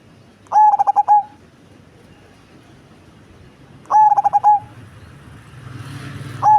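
Cemani perkutut (zebra dove) cooing in its deep voice: two quick phrases of short stuttering notes, one about half a second in and one about four seconds in, with a third beginning right at the end.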